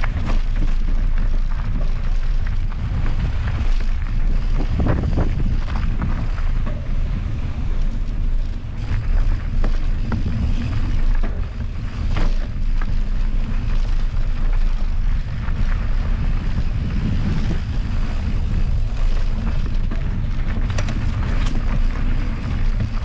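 Wind buffeting the microphone of a mountain bike rider going fast down a trail, a steady low rumble, with tyre noise and a few sharp knocks and rattles of the bike over rough ground.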